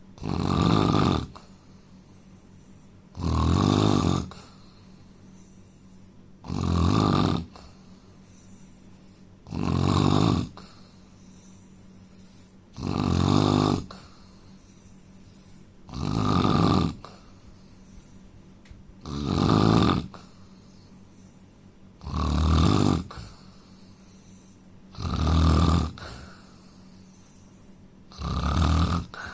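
A man snoring in steady rhythm: ten loud, rasping snores, each about a second long, coming roughly every three seconds.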